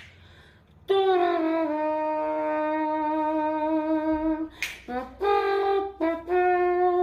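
A voice imitating a wind instrument: long, steady held notes. The first note slides down slightly at its start and is held for several seconds; a short breathy burst comes after it, then two more held notes.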